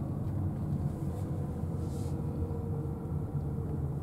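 Car interior noise while driving slowly: a steady low rumble of engine and tyres heard from inside the cabin, with a faint whine that slowly drops in pitch.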